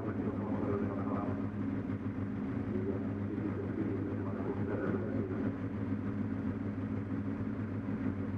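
Formula Ford race car engine idling steadily, heard from the cockpit, with no revving.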